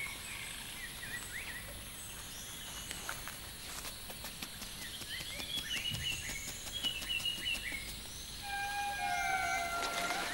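Rainforest ambience: many short bird chirps and calls over a faint high insect whine. Near the end a held, whistled call sets in and sinks slowly in pitch.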